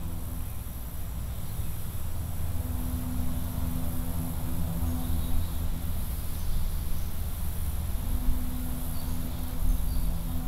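Forest ambience: a steady high insect chirring over a low rumble, with a low droning tone that fades in and out.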